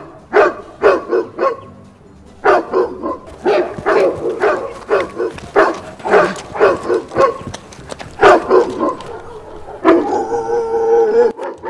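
Recorded dog barking played through a portable loudspeaker as a fake dog: loud barks in quick volleys, with a short pause about two seconds in and a longer drawn-out sound near the end.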